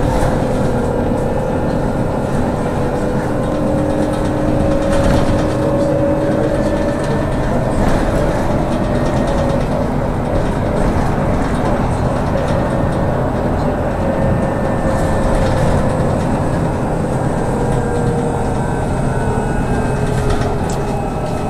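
Trolleybus running along a city street, heard from inside the cabin: a steady rumble of road and cabin noise with a faint whine that slowly rises and falls in pitch.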